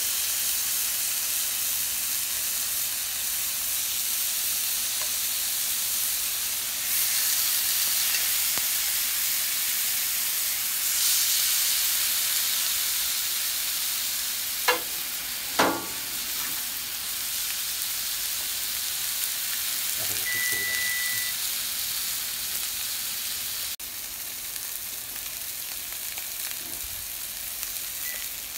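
Seasoned filet mignon steaks searing in hot oil in a cast-iron skillet: a steady sizzle that grows louder about 7 and 11 seconds in as more steaks are added. Two sharp knocks about a second apart come midway.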